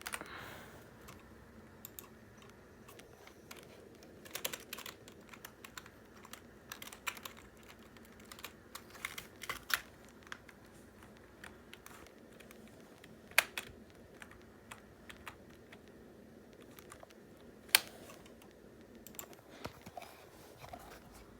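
Irregular light clicks and taps, some in small clusters, with two sharper, louder clicks in the second half.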